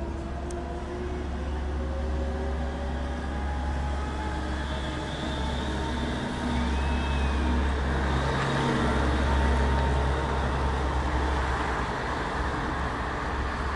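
Berlin U-Bahn train pulling away along an elevated viaduct, its electric traction motors giving a whine that rises in pitch over the first few seconds. Steady road-traffic rumble runs under it and swells around the middle.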